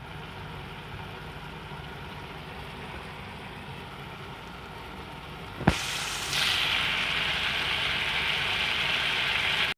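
Food frying in a pan: a steady sizzle that turns louder and brighter after a sharp click a little past halfway, then stops suddenly.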